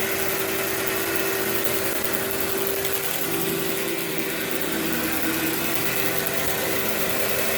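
Workhorse vacuum cleaner running steadily over carpet, a constant motor whine and airflow hiss, its tone shifting slightly about three seconds in.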